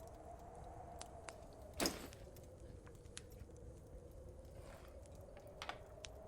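Fire burning in a fireplace: a low, steady background with sparse small crackles and pops. About two seconds in there is one louder short knock with a rustle.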